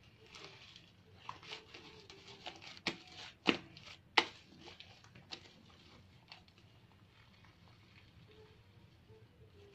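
Homemade slime being kneaded and squeezed by hand: a run of small sticky clicks and smacks, with two sharp louder slaps about three and a half and four seconds in, then only faint handling.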